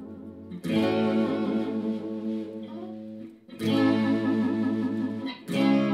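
Electric guitar through an effects unit: three chords struck and left to ring, about three seconds, then two seconds apart, their pitch wavering and bending under the whammy bar.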